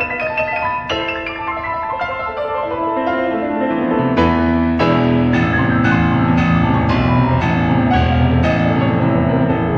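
Solo piano playing fast, sweeping runs of notes; from about four seconds in, heavy low bass chords strike about twice a second beneath them.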